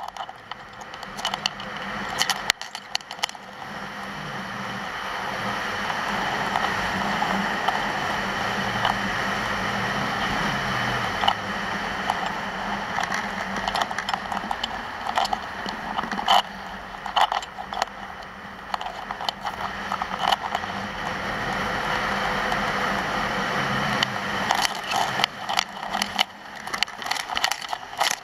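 Skis hissing and scraping over packed piste snow on a downhill run, building up over the first few seconds into a steady rush, with scratchy clicks that come thicker over the last few seconds.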